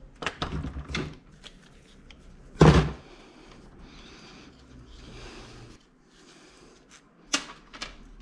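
Hand work on a motorcycle engine: light clicks of tools and small metal parts, one louder knock about two and a half seconds in, then a few seconds of soft rubbing, and two more clicks near the end.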